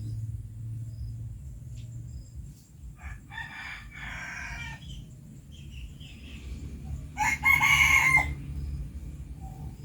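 A bird calling twice: a drawn-out call about three seconds in, then a louder call of about a second near the end, over a steady low hum.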